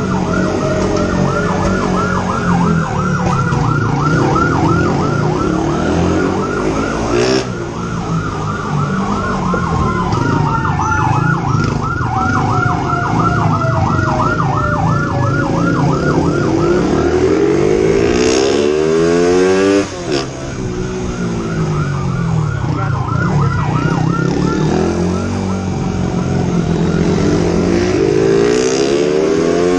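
Police motorbike siren sounding in a fast, repeating warble, dropping out for a few seconds twice, over the constant noise of motorbike engines and wind. A motorbike engine revs up and drops sharply about twenty seconds in, and revs up again near the end.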